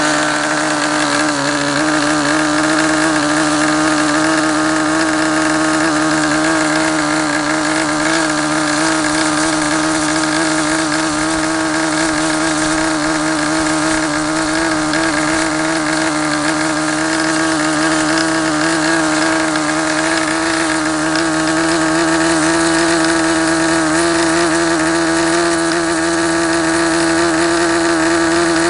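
SuperTigre G51 two-stroke glow engine turning a 10x6 propeller, running steadily at high speed, about 8,800 rpm, during its break-in after a rebuild, not yet peaked. Its pitch edges up slightly near the end.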